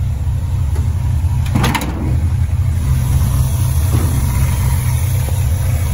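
350 small-block Chevy V8 with an Edelbrock four-barrel carb and Flowmaster exhaust idling with a steady low rumble. A short clatter a little under two seconds in.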